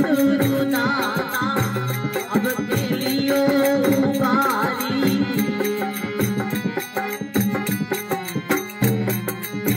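Male voice singing a devotional bhajan with wavering, ornamented phrases over sustained harmonium tones and a steady hand-percussion beat. The singing pauses in the second half while the harmonium and beat carry on.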